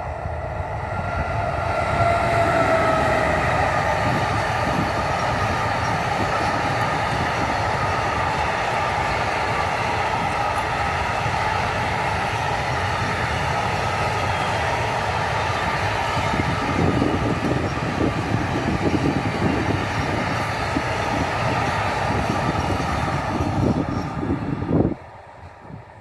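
TX Logistik class 193 Siemens Vectron electric locomotive passing close with an intermodal train of semi-trailer wagons. A whine drops in pitch as the locomotive goes by, then the wagons make a loud steady rumble on the rails, rattling more from about two-thirds of the way in. The noise cuts off sharply near the end.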